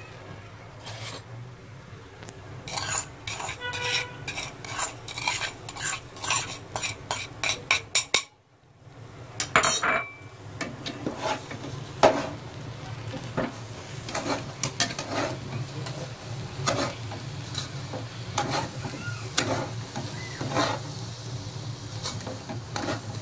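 Long metal spatula scraping and clinking against an aluminium pot as a thick mash of fried chana dal and sugar is stirred, over a steady low hum and some sizzling from the ghee. The stirring strokes stop briefly about eight seconds in, then carry on.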